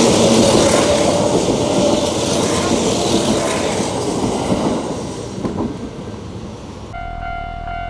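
Kintetsu 'Aoniyoshi' limited express electric train passing close by, a loud rush of running and wheel noise that fades away over the last few seconds. About seven seconds in it cuts off suddenly to music.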